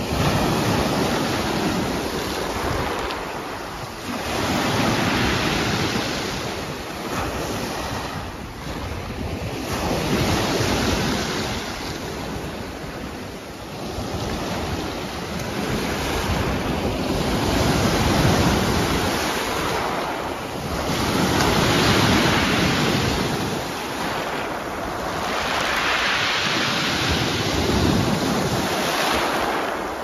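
Sea waves breaking and washing up a pebble beach, the surf swelling and falling away every few seconds. Wind buffets the microphone.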